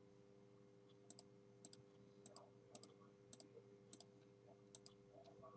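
Faint computer mouse clicks, often in quick pairs, roughly every half second, over a faint steady hum.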